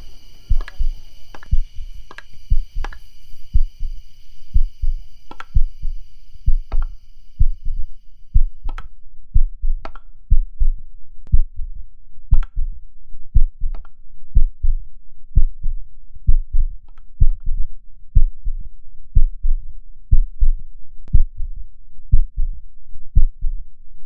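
A heartbeat sound effect: a steady, even rhythm of low thumps, with sharp clicks above them. A high ringing tone fades away in the first few seconds, and a low steady hum comes in under the beat.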